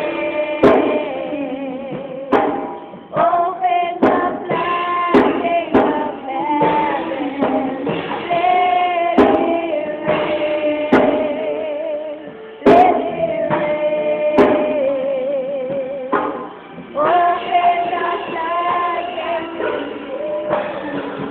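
A worship song sung over a backing track, with a toddler singing into a handheld microphone. The melody has long held notes that waver, and a few sharp hits punctuate it.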